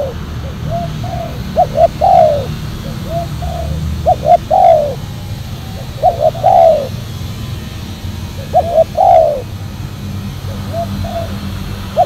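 Spotted dove cooing, its phrase repeated about every two seconds: two or three short notes and then a longer, louder falling coo. A low steady rumble runs underneath.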